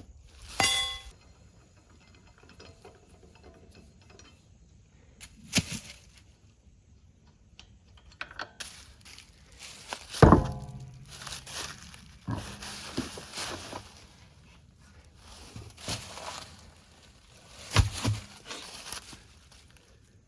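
Hand tools working on a car wheel by hand: metal clanks and knocks, a ringing clank near the start and the loudest knock about halfway through, with scraping and rattling between further knocks in the second half.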